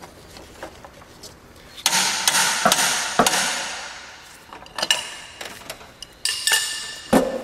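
Hammer striking a wrench on the fan clutch nut to tighten it: a series of sharp metal clanks with ringing, starting about two seconds in and recurring until near the end.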